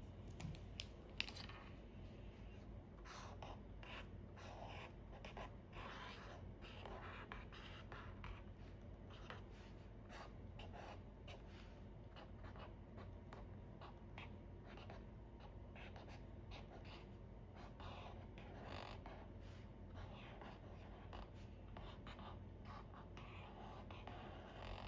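Marker pen strokes on paper, many short strokes one after another, faint. Two sharp clicks about a second in.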